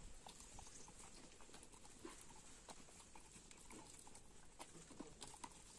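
Faint, irregular wet clicks and smacks of a dog licking and chewing a treat from a hand.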